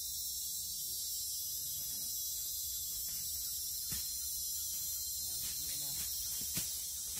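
Steady high-pitched chorus of forest insects, with two sharp clicks, about four seconds in and again near the end.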